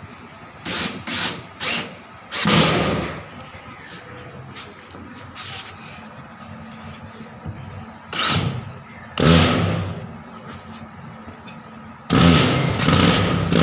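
Cordless drill driving screws through fiber cement board into steel C purlins, run in separate trigger bursts: three quick blips, then several longer runs of about a second each.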